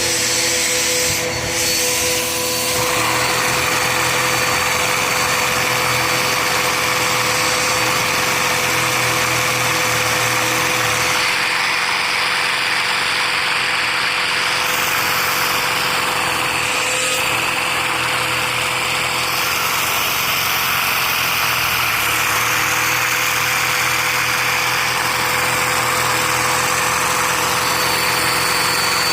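A vacuum cleaner running steadily, its suction driving a LEGO inline-two vacuum engine with a chain-driven valve crankshaft. The vacuum's steady whine and rush of air are loudest.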